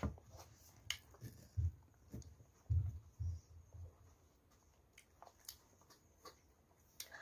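Hands handling a bunch of bananas and pulling one off the bunch: scattered soft clicks and a few dull thumps, the loudest about three seconds in.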